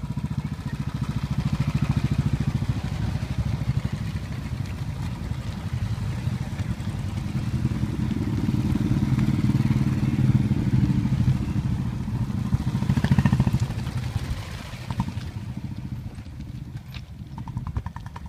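Several Royal Enfield Bullet motorcycles riding past in a group, their single-cylinder engines thumping in a fast, low beat. The sound swells as the bikes pass close about halfway through and fades near the end.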